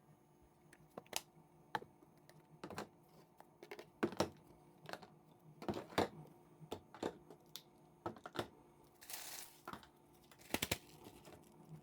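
Faint, scattered clicks and knocks of small objects being handled, irregular and spread throughout, with a short hiss about nine seconds in.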